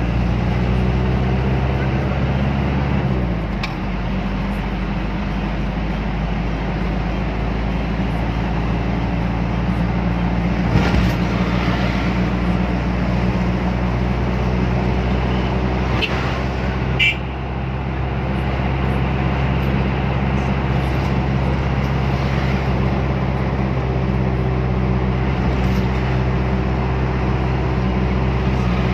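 A motor vehicle's engine running at a steady speed with road noise, with a couple of brief sharp sounds partway through.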